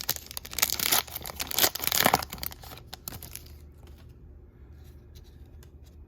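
A foil trading-card pack being torn open, with its wrapper crinkling in a rush of rustles for about three and a half seconds. Then come only a few faint clicks of cards being handled.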